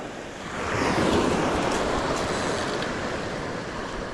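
Surf washing up a pebble beach: a broad, even rush that swells about half a second in and then holds steady.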